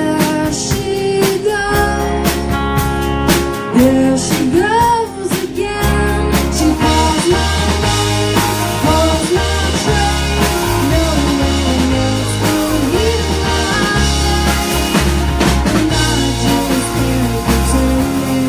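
A live rock band playing: drum kit, a steady bass line and a singing voice.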